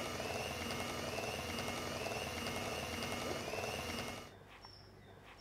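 Electric hand mixer running steadily in a glass bowl, beating flour into cake batter, with a constant motor whine; it switches off about four seconds in.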